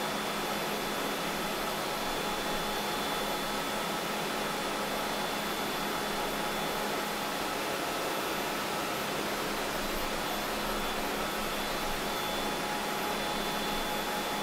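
Steady hiss and hum of a car assembly hall's ventilation and machinery, with a few faint constant whining tones and no distinct knocks or clanks.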